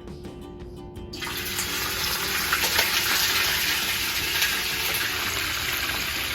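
Galunggong (round scad) laid into hot oil in a frying pan, setting off a loud, steady sizzle that starts suddenly about a second in.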